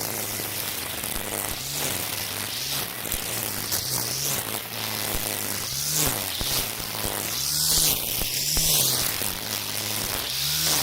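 Cordless string trimmer (Makita 40V split power head with nylon cord) running while cutting overgrown weeds. Its motor hum rises and falls in pitch every second or so as the line sweeps through the grass, over a steady hiss of whipping cord.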